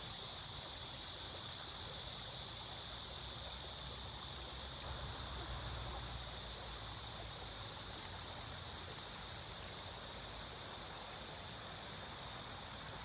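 Steady outdoor background noise: an even high hiss with a low rumble underneath, and no distinct events.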